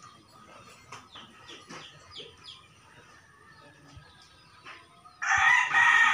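Rooster crowing: one loud crow starting about five seconds in.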